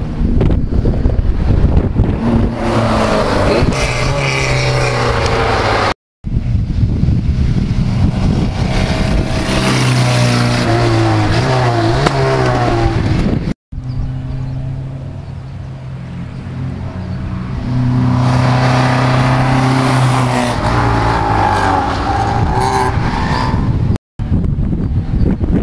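Historic rally cars driving hard past on a twisty tarmac road, their engines revving up and dropping back through gear changes. The sound cuts out abruptly three times between passes.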